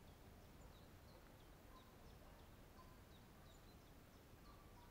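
Near silence with a small bird's faint, short high chirps repeating two or three times a second.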